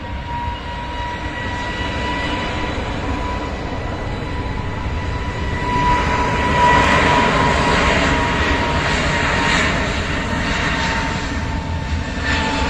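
Airbus A320's twin jet engines during its take-off roll along the runway: a steady whine over a rumble, with jet noise swelling louder about halfway through.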